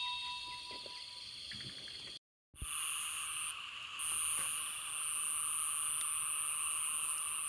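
Steady night chorus of insects and frogs after rain, several even drones held without a break. It starts after a brief dropout about two seconds in; before that a metallic ring fades out.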